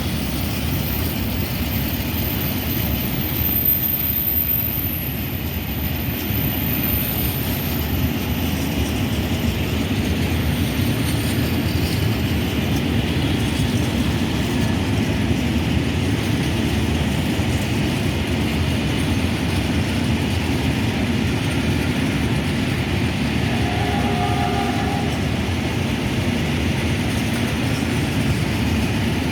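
Freight train of Eas open wagons, hauled by an ÖBB Taurus electric locomotive, rolling past with a steady rumble and clatter of wheels on the track. A brief faint tone sounds a few seconds before the end.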